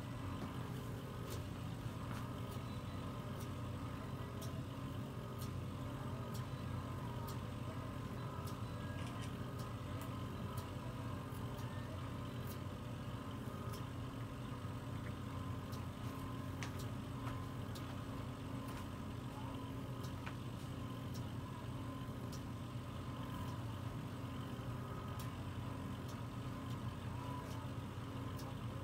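Microdermabrasion machine's vacuum pump running with a steady low hum while its suction wand is worked over the skin, with a few faint clicks.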